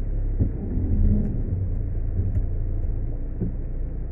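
Car heard from inside the cabin: a steady low rumble.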